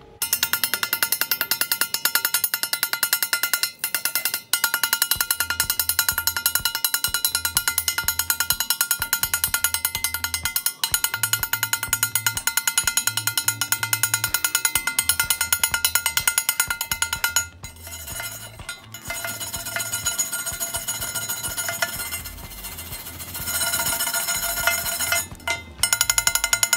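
Background music with a fast, steady beat and a stepping bassline, softer for a few seconds past the middle.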